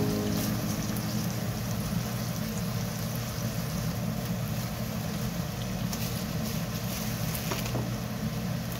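Onions and carrots sizzling in hot oil in a nonstick wok, a steady frying hiss over a low, even rumble, with a few short clicks near the end as the food is stirred and cabbage goes in.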